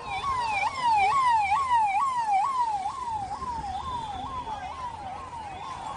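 Emergency vehicle siren sounding in a fast yelp, its pitch sweeping up and down about two and a half times a second. It is loudest about a second in and eases off toward the end.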